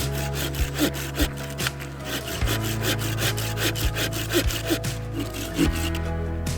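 Saw cutting through firewood in steady back-and-forth strokes, about two to three a second, over background music with sustained low notes.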